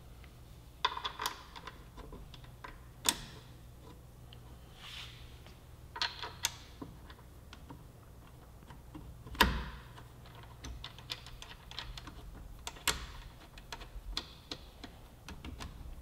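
Scattered clicks and light metal knocks as a motorcycle's front brake caliper is worked into place over the rotor and its mounting bolts are handled by hand, with the sharpest knock about nine seconds in.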